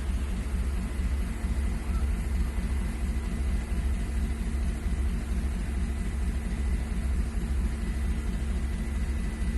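An engine running steadily, a low rumble with a faint high steady whine above it.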